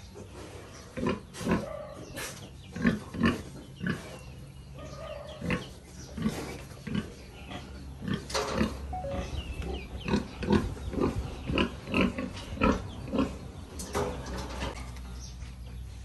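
Nursing sow grunting while her litter of piglets suckles: short, repeated grunts, about one a second at first and quickening to about two a second in the second half, the rhythmic grunting a sow gives while suckling her litter.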